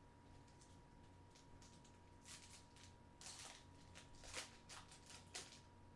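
Faint rustling and several short swishes of football trading cards and their packaging being handled, starting about two seconds in, over a steady low electrical hum.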